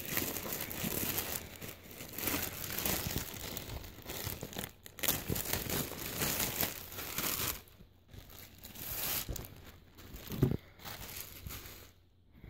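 Clear plastic poly bag crinkling and tearing as it is opened and a folded t-shirt is pulled out. The crinkling is irregular and loudest for the first seven seconds or so, then gives way to quieter handling.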